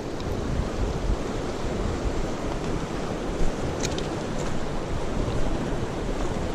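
Fast-flowing river rushing over a cobble bed, a steady rush of water, with wind gusting on the microphone and a few faint ticks midway.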